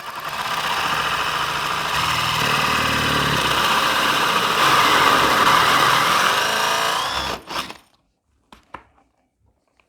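Power drill spinning a Forstner bit in the Kreg concealed hinge jig, boring a hinge cup hole into wood to the set depth stop. The motor runs steadily for about seven seconds, then stops, followed by a couple of short knocks.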